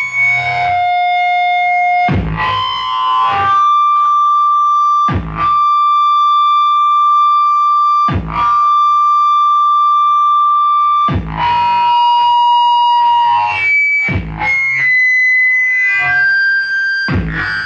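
Live electronic noise music: steady, piercing tones held for several seconds, broken about every three seconds by a short distorted blast, after which the held tone often shifts to a new pitch.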